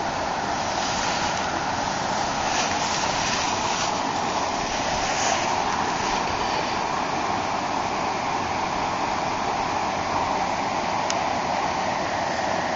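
Steady rushing of river water spilling over a low weir, with a single sharp tick near the end.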